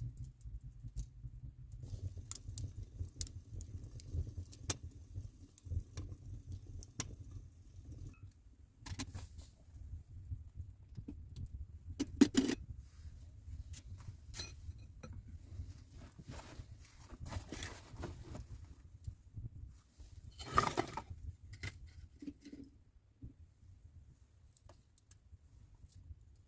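Light clinks, clicks and rustling of objects being handled, over a low rumble, with two louder clattering knocks, one about twelve seconds in and one about twenty seconds in.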